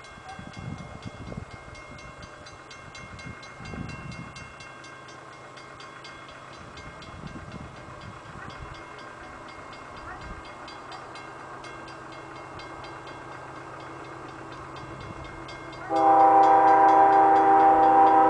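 A grade-crossing bell rings faintly and steadily as a diesel freight train approaches. About two seconds before the end, the lead CP ES44AC locomotive's air horn sounds, loud and steady, a chord of several notes.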